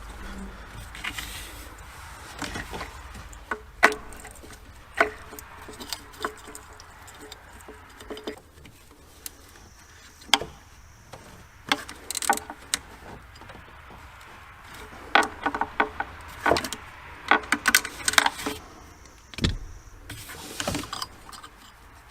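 Irregular clicks, clacks and knocks of hand tools and parts being handled during work on a van, with several quick clusters of clatter.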